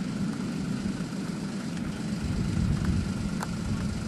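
A pack of LO206 and clone racing karts, small single-cylinder four-stroke engines, running together on track at a distance, heard as a steady low engine drone.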